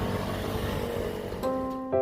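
Background music over steady noise. About one and a half seconds in, a bright mallet-instrument melody of struck notes begins.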